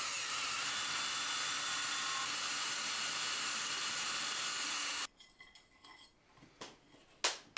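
Ryobi cordless drill running steadily for about five seconds, driving a screw through a pancake electrical box into a wooden stud, then cutting off abruptly. A few light ticks and one sharp click follow near the end.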